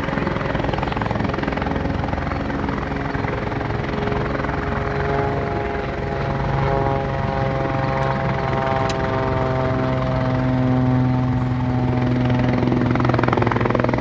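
Helicopter hovering low over water with its water-pickup hose dipped into the lake: a steady, rapid rotor chop with a steady engine hum. The hum grows stronger from about six seconds in.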